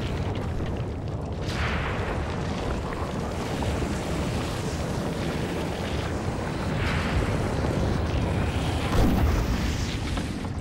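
Underwater volcanic eruption: a deep, steady rumble with about four surges of hissing on top, the loudest near the end.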